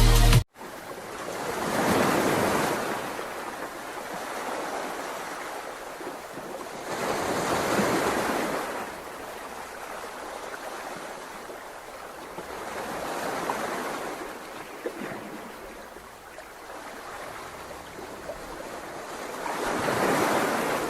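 Sea waves washing onto a shore, each one swelling and fading, four times about six seconds apart.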